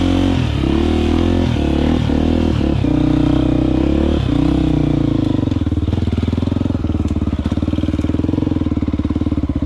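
Motorcycle engine running under way on a dirt trail, its speed rising and falling several times over the first four seconds or so, then holding steadier.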